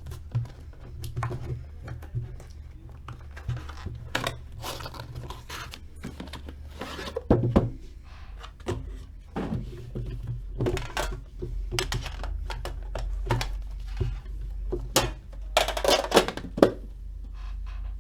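Hands handling and unwrapping a sealed trading card box: scattered rustling, light knocks and tearing of wrapper and cardboard, with a denser run of rustling near the end, over a steady low hum.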